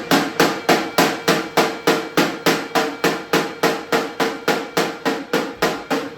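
Rapid, even series of sharp knocks, about three a second, stopping near the end, over a steady held tone.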